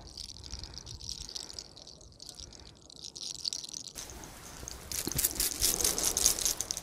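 Close rustling and crackling of hands working through hair near the microphone. It starts about four seconds in and is densest between five and six and a half seconds, after a faint steady high-pitched background noise.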